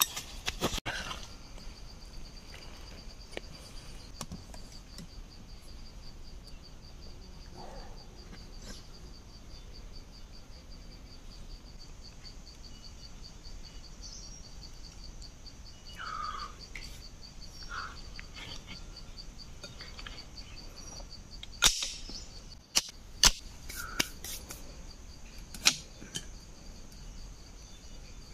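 Insects trilling steadily in a high, rapidly pulsing chorus, with a few sharp clicks and knocks of bamboo sticks being handled in the second half.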